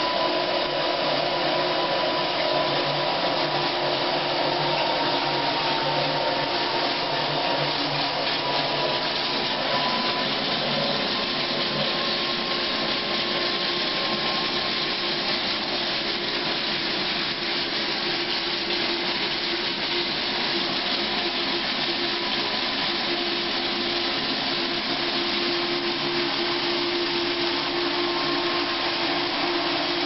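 KitchenAid KDA-5 portable top-loading dishwasher running mid-cycle: a steady motor hum under a dense rushing hiss, level and unbroken.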